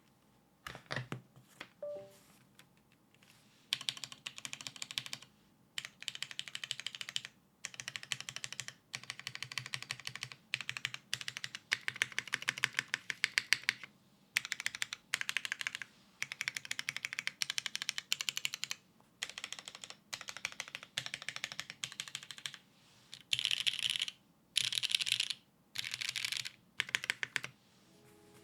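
Typing on a full-size mechanical keyboard with lubed Cherry MX Black linear switches on a polycarbonate plate, top-mounted, without foam, and GMK keycaps: fast runs of keystrokes in bursts of a second or two with short pauses between them. A few single key presses open it, and the bursts near the end sound sharper and brighter.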